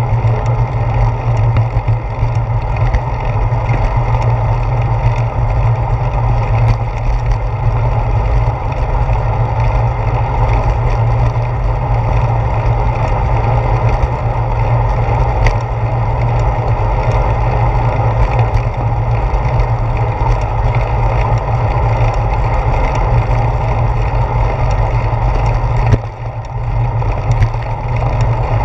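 Steady wind and road rumble picked up by a handlebar-mounted GoPro Hero 4 on a bicycle rolling along a concrete sidewalk, heavy in the low end. The level dips briefly near the end.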